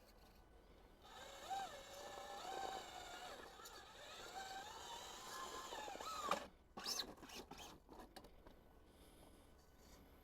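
RC rock crawler's electric motor and geartrain whining under throttle, the pitch rising and falling as the speed changes. Near the middle it ends in a quick upward sweep, followed by a few sharp clicks.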